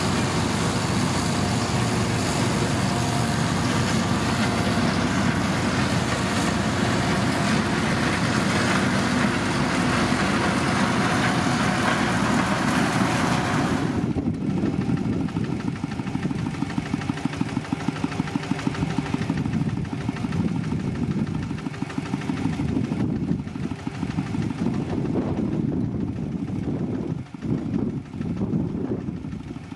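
Heavy diesel engine of a motor grader running. A loud rushing noise lies over it for the first half and cuts off suddenly about halfway through, leaving the lower engine sound.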